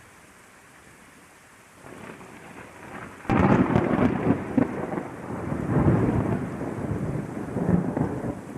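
Steady rain hiss, then a thunderclap: a low rumble builds about two seconds in and breaks into a sudden sharp crack just over three seconds in. Loud rolling rumble follows over the rain.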